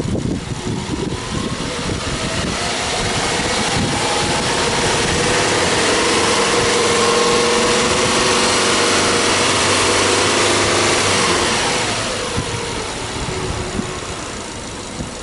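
Subaru Legacy B4 2.5i's EJ25 flat-four engine revved with no load: the revs climb slowly over the first few seconds, are held up for several seconds, then drop back to idle near the end.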